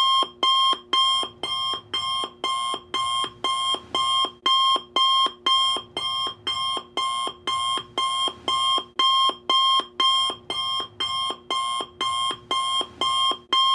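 Alarm clock ringing in a fast, even repeating pattern of about two and a half rings a second, starting suddenly out of silence: the signal that the countdown timer has reached zero and time is up.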